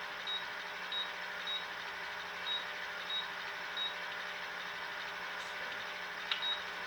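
Deluxe Cooking Blender's control panel beeping: about seven short, high beeps at uneven intervals as its program control is stepped through to the heated wash cycle, over a steady low hum.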